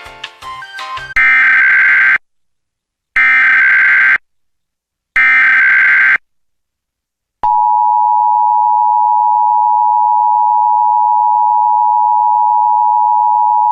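The end of an electronic music cue, then three one-second bursts of EAS SAME header data (harsh digital screeching), a second apart. About seven seconds in comes the steady two-tone EAS attention signal, which holds unbroken.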